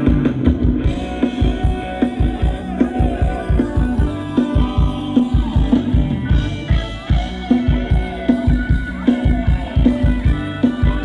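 Live band playing fast Thai ramwong dance music with a steady, driving drum beat.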